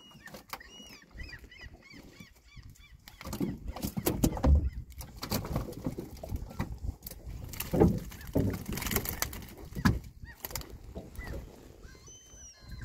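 Birds calling in quick short repeated calls, mostly in the first two seconds and again near the end, over knocks, rustling and water sounds as the catch is scooped out of a fyke net with a hand net. The loudest events are dull thumps about four and a half and eight seconds in.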